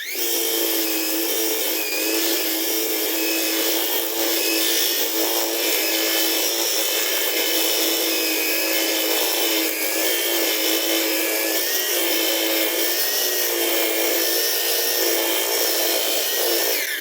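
Cordless brushless electric grass trimmer running at full speed, a steady high motor whine with the cutting head spinning, winding down with a falling pitch at the very end.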